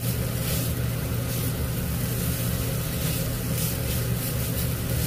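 A steady electric motor hum with a constant hiss over it.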